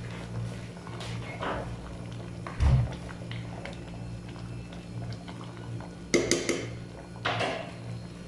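A spoon stirring a thick stew in a stainless steel pot, with a dull thump about two and a half seconds in and a quick run of clinks against the pot around six seconds in, over a steady low hum.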